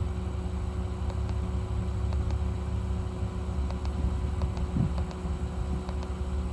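Car engine idling steadily, a low even hum, with a few faint light clicks scattered through.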